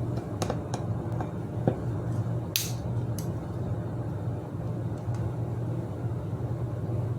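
Small metal clicks and taps of bicycle parts and tools being handled, with a short hiss about two and a half seconds in, over a steady low hum.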